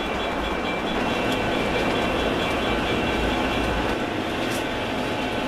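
O scale three-rail model freight train running along the layout's track: a steady rumble of wheels on the rails and the locomotive motors.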